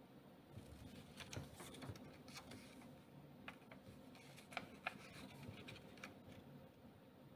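Faint crackling and rustling of a small paper banknote, a Liechtenstein 10 Heller emergency note, as fingers handle it and turn it over, with a few sharper crackles about two-thirds of the way through.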